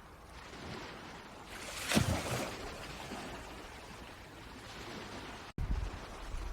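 Outdoor waterside ambience: a steady rush of wind and water noise, swelling louder about two seconds in. It cuts out abruptly near the end and comes back with a heavier low rumble like wind on the microphone.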